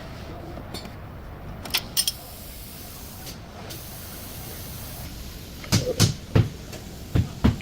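A couple of light clicks, then from near the end a quick run of sharp knocks, about three a second, over a steady low noise.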